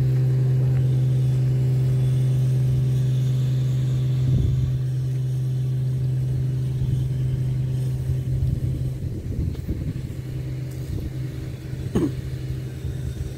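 Steady low hum of running motor machinery, one pitch with a stack of overtones. It weakens in the last few seconds, giving way to an uneven low rumble, with a single knock about four seconds in.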